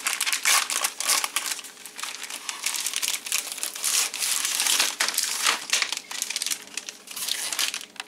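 Foil-lined plastic chocolate-bar wrapper crinkling and crackling as hands open the bag and tip out the individually foil-wrapped bars, easing off near the end.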